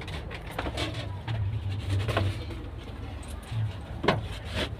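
A person climbing into the cockpit of a parked helicopter: scattered knocks and clicks against the airframe and clothing rustle, over a low steady rumble.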